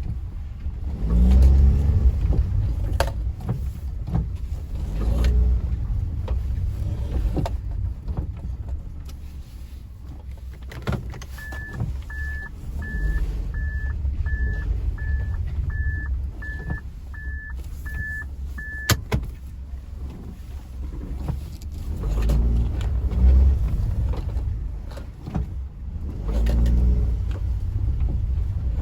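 Suzuki MR Wagon heard from inside the car: a low engine and road rumble that swells and eases several times, with scattered light knocks. In the middle, about a dozen short, even electronic beeps come roughly one and a half a second for several seconds, ending with a click.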